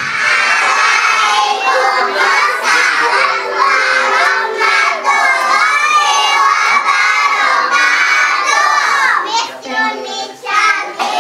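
A group of young children shouting and singing out together in chorus, loud and unbroken, fading for a moment about nine and a half seconds in before voices pick up again.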